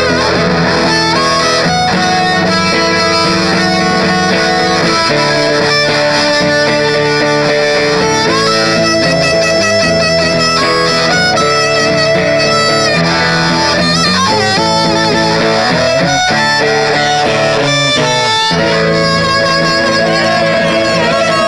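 Blues harmonica played cupped against a hand-held microphone, with held and bending notes, over guitar accompaniment, both amplified through a small PA.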